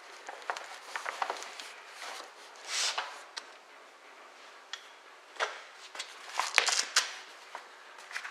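Rummaging in a car trunk: scattered clicks and knocks with a brief rustling swish as the spare-tire cover, a strap and a cloth cover are handled, the sharpest clicks coming a little past halfway.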